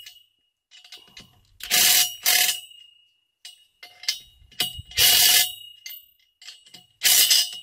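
Allen wrench turning the Loctite-coated set screws of a solar-rack top cap into a galvanized steel pipe post. Short grinding metal-on-metal bursts, each with a ringing metallic tone, come in groups about every three seconds, one group per turn of the wrench.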